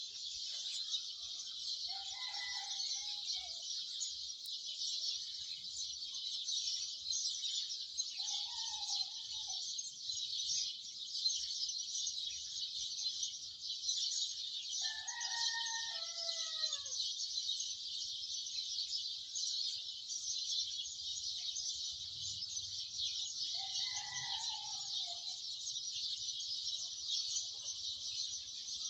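A dense, continuous chorus of sparrows chirping. Behind it, in the background, a rooster crows four times, the third crow the longest and falling at its end.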